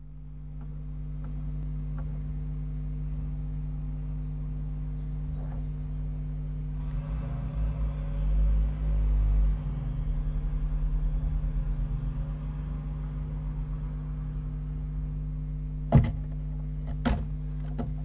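Steady low electrical hum on a surveillance camera's audio, with a low rumble swelling from about 7 to 10 seconds in and a few sharp knocks near the end.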